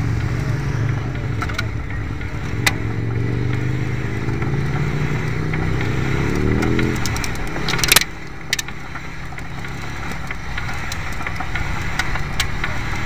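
Vehicle engine running close by, its pitch rising from about four seconds in until it cuts off about seven seconds in. A sharp knock follows about a second later, with a smaller one just after.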